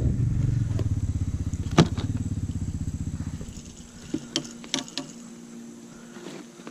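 Arctic Cat 4x4 ATV engine running with an even, rapid pulse, fading out about three and a half seconds in. A sharp click comes near two seconds in, and a few lighter clicks of gear being handled follow later over a faint steady hum.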